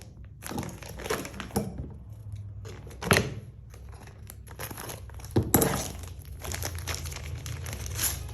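Plastic packaging crinkling and rustling in irregular bursts as it is handled and opened, with two louder sharp knocks, one about three seconds in and another two seconds later.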